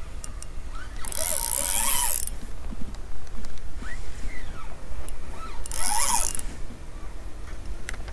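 Spinning reel being cranked by hand to wind in a lure, its gears and rotor whirring in two louder spells, about a second in and again about six seconds in.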